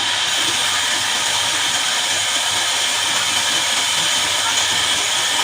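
Horizontal band sawmill running steadily, its band saw blade cutting through a jackfruit log with an even, continuous hiss.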